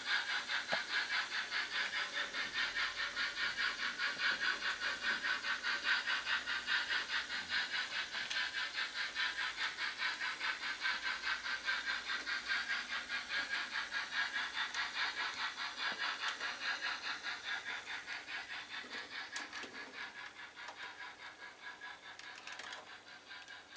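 Rhythmic steam chuffing of an H0-scale model G 4/5 steam locomotive running at a steady pace, a few beats a second. It fades away over the last several seconds as the train runs off.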